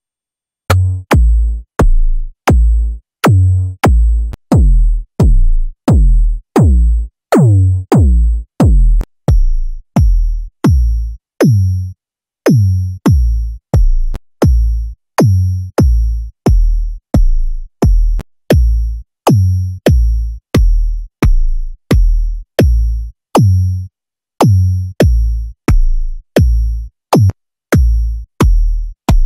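Synthesized kick drums from the KickOne kick synthesizer plug-in, hit a little under twice a second. Each is a deep thump with a short click on top. The early hits drop sharply in pitch, and from about nine seconds in the click turns into a high metallic tick. The character changes as presets are switched, with brief pauses between runs.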